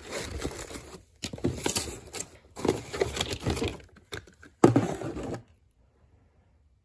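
Rustling and handling noise as tools are taken out of their packaging, in several bursts with a sharp knock just before the five-second mark, then it stops.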